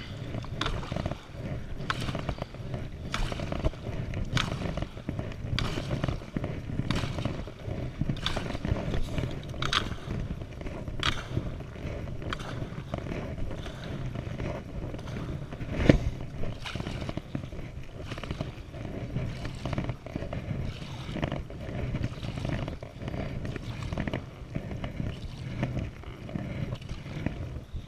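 Paddle strokes from a stand-up paddleboard, a short sharp splash or knock about every second and a bit, over a steady low rush of water. One stroke, about halfway through, is louder than the rest.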